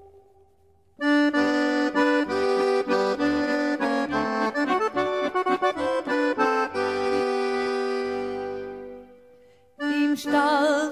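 Background music: an accordion interlude in a Swiss German folk song, a quick run of notes after a brief pause that dies away. The singer comes back in near the end.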